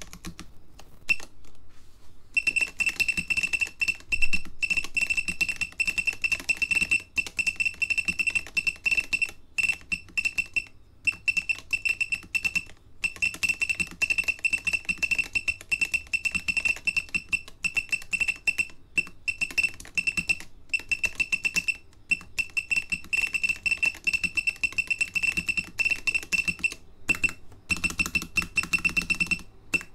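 Continuous fast typing on a caseless mechanical keyboard with new-old-stock SMK gen2 orange linear switches and silicone keycaps, many quick key strikes a second. A steady high-pitched tone sounds behind the typing from about two seconds in, broken by brief gaps.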